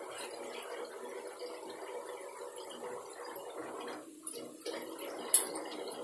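Chicken curry bubbling in a pan while chopped coriander leaves are tipped in from a plastic colander and pressed down by hand. One sharp click about five seconds in.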